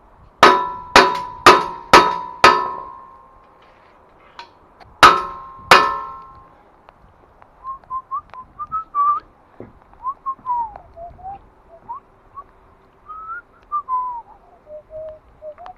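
Ringing metal-on-metal blows on steel scaffold parts: five in quick succession, about two a second, then two more. Then a person whistles a wandering tune.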